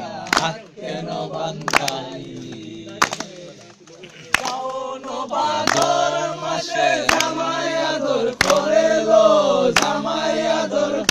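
A group of men singing a Bengali folk song together, with sharp hand claps keeping time a little over a second apart. The singing drops back briefly and then comes in louder about halfway through.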